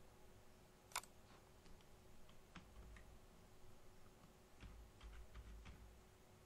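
Faint clicking of a computer keyboard being typed on, a few scattered keystrokes with one sharper click about a second in.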